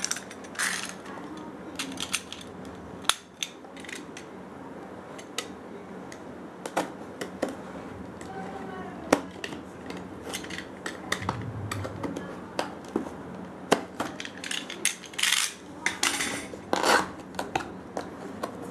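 Small cardboard product box being opened by hand: a cutting tool slitting the tape seal, with scattered irregular clicks, taps and scrapes of cardboard and handling. Near the end come a couple of longer tearing sounds as the seal is peeled back.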